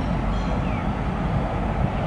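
EMD G22 diesel locomotive running as it rolls slowly forward, its 12-cylinder two-stroke EMD 645 engine giving a low, steady sound.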